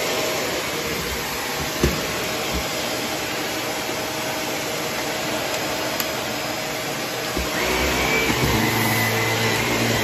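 Purple Shark upright vacuum cleaner running steadily as it is pushed over a hardwood floor, with a light knock about two seconds in. Near the end the sound grows a little louder and takes on a steady hum and a high whine as the head goes onto a rug.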